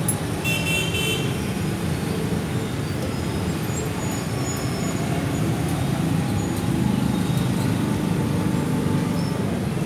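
Steel pot of giant sea snails at a rolling boil over a gas burner: a steady low rumble of flame and bubbling water.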